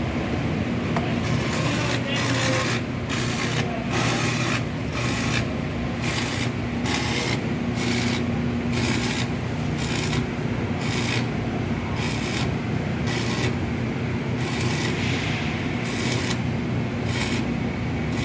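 Repeated rasping strokes of a hand tool worked back and forth, like a file or hand saw on material, about one to two strokes a second, over a steady low machine hum.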